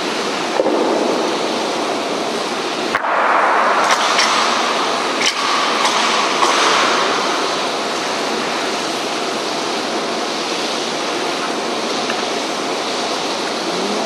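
Heavy rain falling, a loud, steady hiss. A few sharp knocks cut through it about three to seven seconds in.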